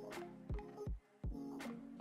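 Background music with held chords over a steady low beat, dropping out briefly about a second in.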